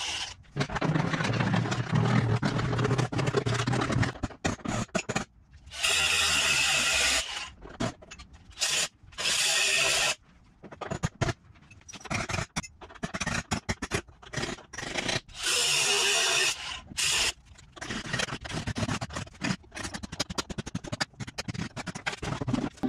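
Power tool cutting through the truck's rusted cab-corner sheet metal in short stop-start bursts of a second or two, with brief pauses between cuts.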